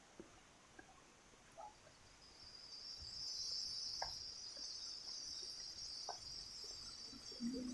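High, steady insect buzz that fades in about two seconds in and then holds, with a few faint light clicks.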